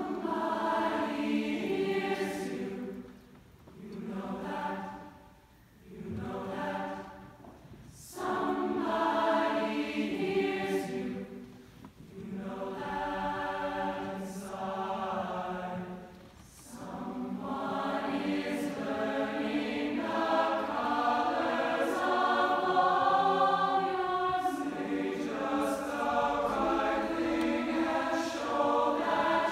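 A large youth choir of about 160 voices singing in harmony. For the first sixteen seconds or so it sings short phrases with brief pauses between them, then goes into one long unbroken passage.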